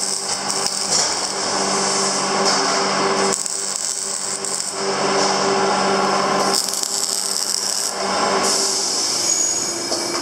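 Electric arc welding on 8 mm round steel bar: the arc crackles in a few separate welds of a couple of seconds each, over a steady low hum.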